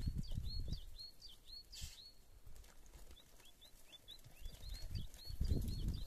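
A small bird calling over and over in quick short chirps, about three a second, with low rumbling bursts at the start and again about five seconds in.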